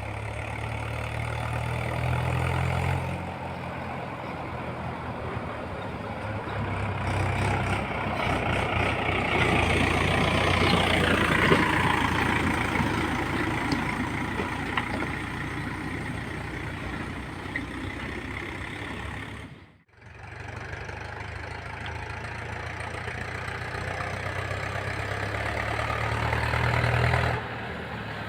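Heavy diesel machinery engine running steadily, with a whine that rises and then falls in pitch about ten seconds in. The sound breaks off briefly near twenty seconds in.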